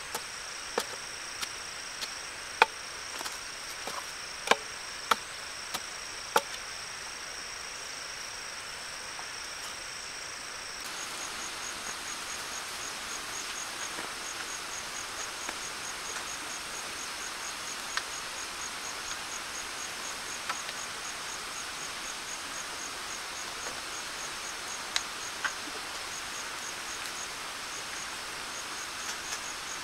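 A wooden pole tamping the earth around a bamboo post, sharp knocks about every half second for the first six seconds, over a steady high insect drone. About eleven seconds in the drone gives way to an insect chirping about three times a second, with a few faint knocks.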